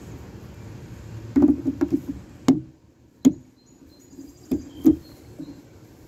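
Felt-tip markers being handled: a quick cluster of clicks and knocks about a second and a half in, then four single sharp clicks, as a marker cap is snapped off and on and markers are set down on the table.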